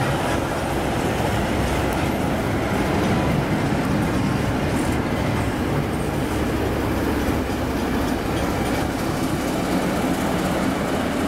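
A ČSD class 498.0 steam locomotive and a coupled T678 diesel locomotive rolling slowly past, a steady rumble of engine and running gear on the rails. It is loudest about three to four seconds in, as the locomotives pass closest.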